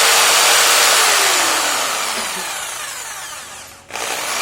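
Bosch GST 700 jigsaw's motor running at its highest speed setting, 3. It holds steady for about a second, then its pitch falls and it grows quieter as it slows. It cuts out briefly near the end and starts up loud again.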